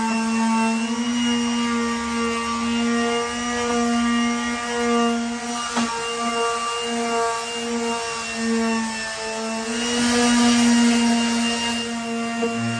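Electric palm sander running against a wooden roosting bar: a steady motor hum at one pitch under the scratch of sandpaper on wood. The scratching gets louder about ten seconds in.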